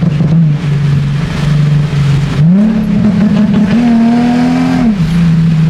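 2007 Nissan 350Z's V6 engine running under way. Its note climbs about two and a half seconds in, holds and rises a little more, then drops back to its earlier steady pitch near the end.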